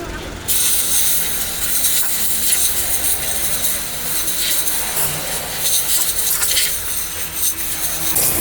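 Repeated rubbing, scraping strokes, starting abruptly about half a second in, with an uneven rhythm.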